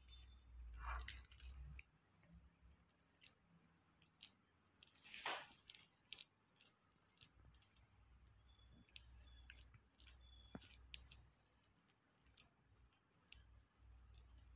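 Faint, soft squishing and scraping of a spoon working through mayonnaise chicken stuffing, with scattered light clicks; the loudest squish comes about five seconds in.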